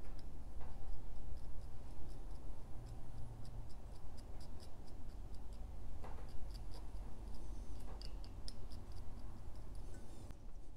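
Light ticks and scrapes of a thin metal pick dabbing and smoothing sealant over the leaking well plugs of a cast-aluminium Quadrajet carburetor body. The ticks come a few a second and get busier in the middle of the stretch, over a steady low hum.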